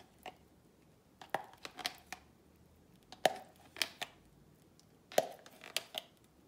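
Yogurt being tipped and scooped from a bowl into a stainless steel pan of chicken pieces: scattered light clicks and knocks of the bowl and utensil against each other and the pan, about ten in small clusters.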